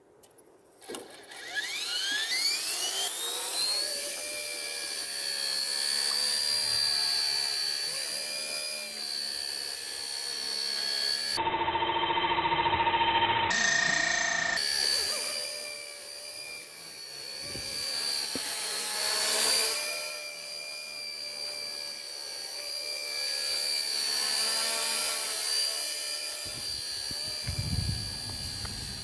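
Small electric motor of a homemade mini remote-control helicopter spinning up with a rising whine, then running with a steady high-pitched whine; the sound changes abruptly for a few seconds in the middle.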